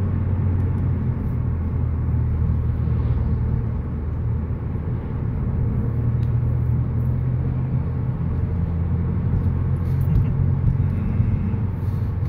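Steady low engine drone and road noise heard inside a moving car's cabin while cruising.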